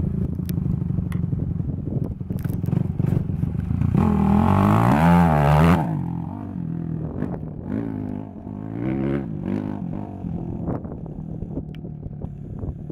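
Suzuki RM-Z250 dirt bike's freshly rebuilt 250 cc four-stroke single-cylinder engine on its break-in run. It revs hard and is loudest about four seconds in, as the bike passes close, spraying dirt. It then rises and falls in pitch and fades as the bike rides off.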